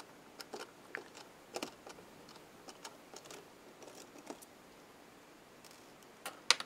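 Small scattered clicks and ticks of a precision screwdriver and fingers working tiny screws and parts on a plastic camcorder front-cover ring, with a louder pair of sharp clicks near the end.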